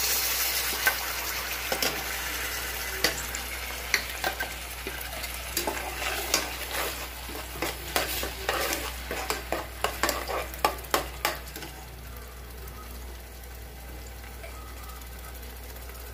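Ground green masala paste sizzling as it hits hot oil in a nonstick kadai, with a steel ladle scraping and knocking against the pan as it is stirred. The stirring stops about twelve seconds in and a softer, steady sizzle goes on.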